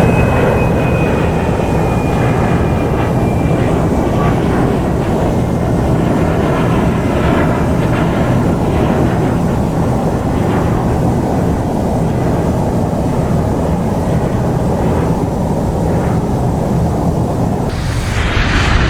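Boeing 747 jet engines running at high power, a loud steady rush of engine noise, growing brighter near the end.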